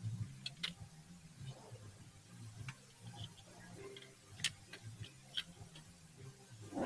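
Scattered light clicks and taps of parts being handled and fitted into place in a car engine bay, over a low steady hum.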